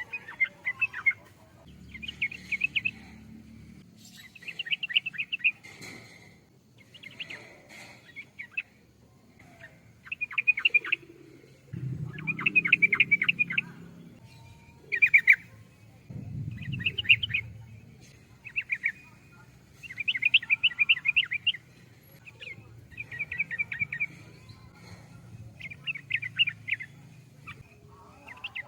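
Yellow-vented bulbul (trucukan) singing: short phrases of rapid notes, repeated about every two seconds.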